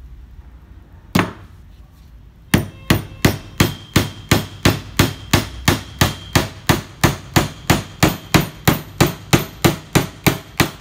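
Vonder magnetic claw hammer driving a nail into a wooden board. There is a single blow about a second in, then a steady run of hammer blows, about three a second, with a light metallic ring under them.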